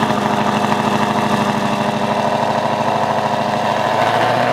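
Twin-turbo Shelby GT500's V8 idling steadily just after being started. The idle note shifts slightly near the end.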